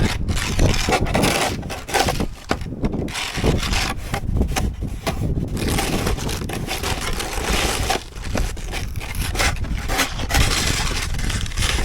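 Snow shovel scraping and crunching through snow on a driveway, in a run of irregular strokes with brief pauses.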